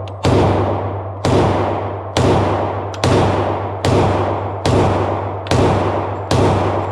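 Handgun shots fired one after another at a steady pace, a little under a second apart, about eight in all. Each shot echoes and fades in the enclosed range.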